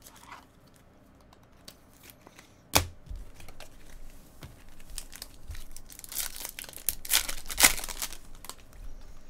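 Foil trading-card pack being torn open and its wrapper crinkled as the cards are handled. A sharp snap about three seconds in, then crackling and tearing that gets denser toward the end.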